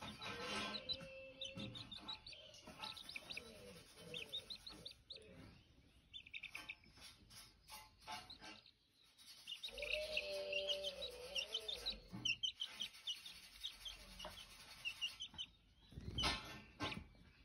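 Baby chick peeping: runs of rapid, short, high cheeps that pause for about a second in the middle.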